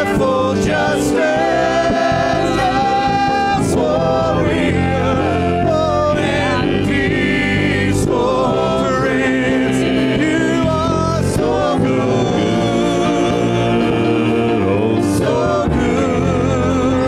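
Live gospel worship band and several singers performing a praise song, with voices singing a melody over a full band backing, and sharp crash-like hits here and there.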